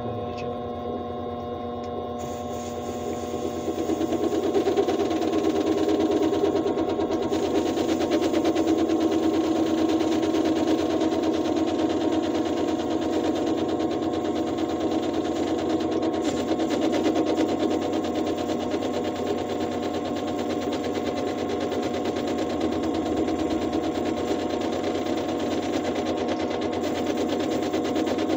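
Vevor mini metal lathe running with a steady motor and gear whine while turning down a small nitro engine cylinder sleeve. About three seconds in the cut gets louder, with a fast, steady rattle over the whine.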